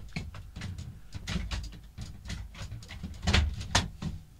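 A run of rustles, knocks and clicks from inkjet photo paper being handled and laid into a printer's paper cassette, loudest about three seconds in.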